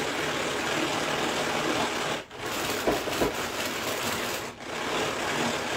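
Tupperware Speedy 2 pull-cord chopper being pulled again and again, its gears whirring and its blades churning soapy water in the bowl to clean it. There are two brief breaks, about two seconds in and again a little past four seconds.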